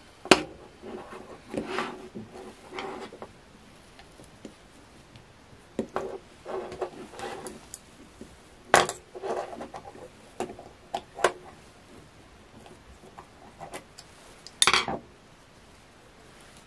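Handling noise from taking apart an Atomstack air-assist pump: the aluminium tube housing, its speed-controller board, end cap and screwdrivers rattle, rub and click. Several sharp knocks stand out between stretches of quieter rattling.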